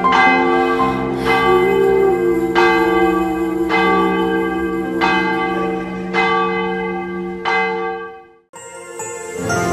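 A church bell tolling, seven strokes about a second and a quarter apart, each ringing on over a low held tone. It cuts off suddenly near the end and soft instrumental music begins.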